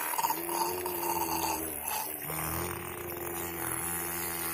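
Small 12-volt DC motor driving a homemade water pump, running with a steady whining hum; a lower, rougher tone joins a little over two seconds in.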